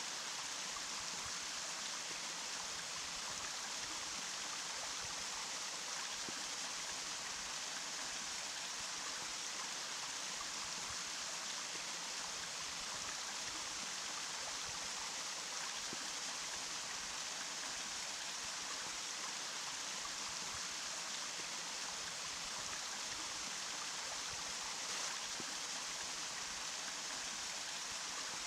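Running water flowing steadily in an even, hissing rush, with a few faint splashes.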